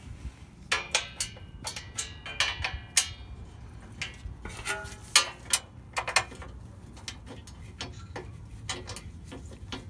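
Irregular sharp clicks and metallic clinks, a few ringing briefly, the loudest about 3 and 5 seconds in.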